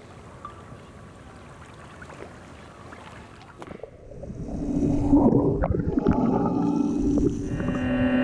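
Water sloshing and gurgling, heard as a submersible drone goes under. About four seconds in it becomes a much louder underwater rumble, with a few knocks and a steady low hum.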